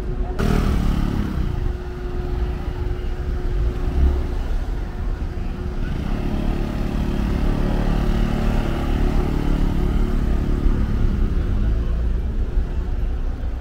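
Street traffic: a motor vehicle passes about half a second in, its engine note falling as it goes by. From about six seconds an engine runs steadily over a constant low rumble.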